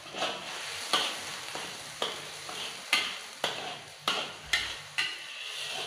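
Metal spatula stirring in a steel wok, knocking and scraping against the pan every half second to a second, over the steady sizzle of spice paste sautéing in oil.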